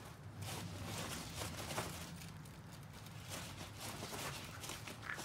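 Chihuahua gnawing on a hard chew stick: scattered small clicks and crunches over a steady low background hum.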